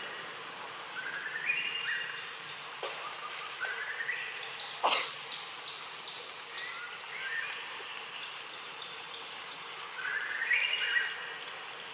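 Forest ambience: a bird singing short phrases of stepped, rising notes every few seconds over a steady high insect drone. One sharp click sounds about five seconds in.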